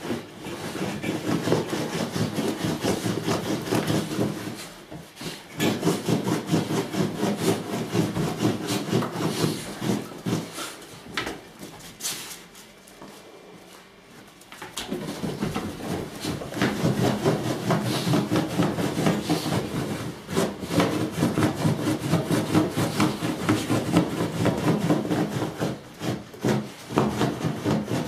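Several basenjis play-wrestling, with continuous rasping play growls and scuffling. It dies down briefly about five seconds in, and again for several seconds before the middle, then resumes.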